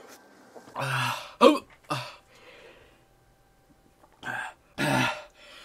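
A man coughing and clearing his throat in short, harsh bouts, mixed with strained groans, in two clusters with a lull of about two seconds between: his reaction to the burn of Carolina Reaper chili peppers he has just chewed.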